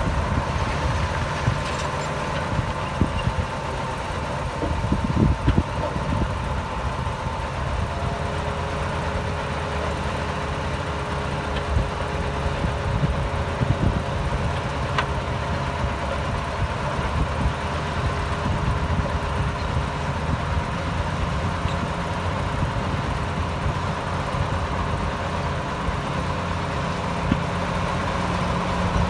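Diesel engine of heavy earthmoving machinery running steadily, with scattered knocks and clatter now and then.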